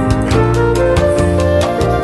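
Background music with a steady beat: sustained melodic notes over a bass line, with regular drum hits.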